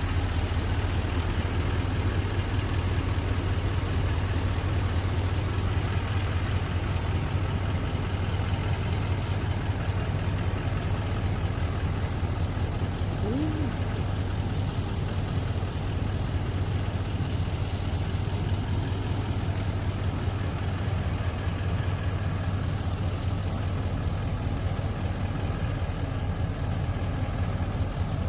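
Large vehicle engine running steadily at low speed with a deep, even hum.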